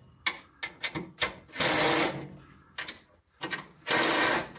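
Cordless power driver run in two short bursts, about a second and a half in and near the end, driving bolts up into a car's rear subframe brace, with light clicks and knocks of metal and tool between.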